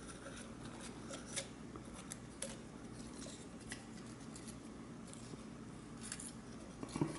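Faint, irregular small clicks and ticks of fingers handling the plastic and metal parts and ribbon cable of a DJI Phantom 4 Pro camera gimbal, over a faint steady hum.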